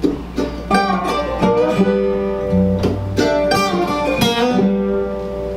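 Acoustic guitar picking and strumming chords over low bass notes, the instrumental intro of a folk song before the vocal comes in.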